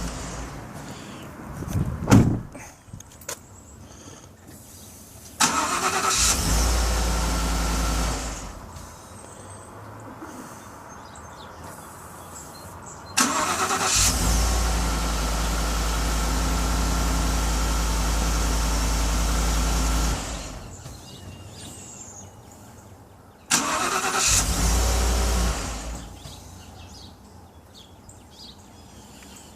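Ford F-150 engine started three times in a row, catching quickly each time and running a few seconds before being shut off. The middle run lasts longest. A single sharp click comes a couple of seconds in. The truck has an intermittent no-start in which it only clicks.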